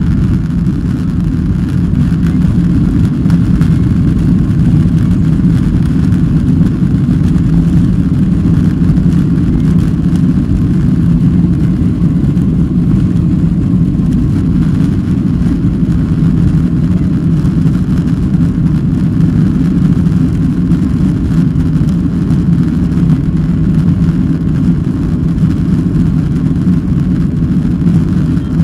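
Boeing 737 jet engines at takeoff power, heard from inside the cabin during the takeoff roll. The loud, steady rumble builds over the first few seconds and then holds.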